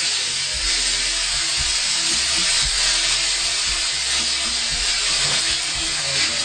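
Sliced tomatoes sizzling steadily in hot mustard oil in a frying pan.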